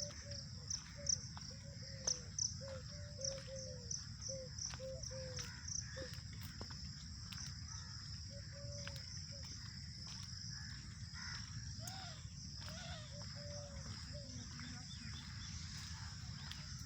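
Birds calling in a park, one repeating short call notes about twice a second, then pausing and resuming, over a steady high trilling of crickets and a low background hum.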